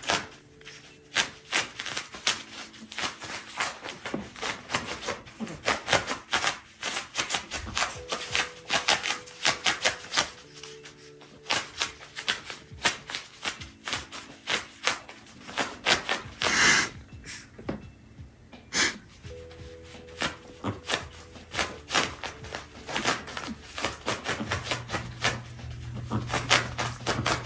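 A Pomeranian's paws digging and scratching at a quilted fabric mat, a fast, continuous run of rubbing scratch strokes with brief pauses and a louder flurry a little past the middle.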